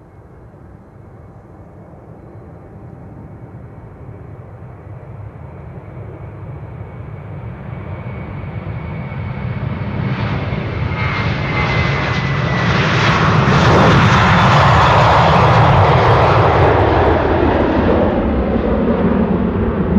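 The twin IAE V2500 jet engines of an Airbus A321-231 at takeoff thrust. The roar swells steadily as the aircraft rolls toward and past, and it is loudest about two-thirds of the way through as it lifts off. A thin engine whine drops slightly in pitch as it goes by.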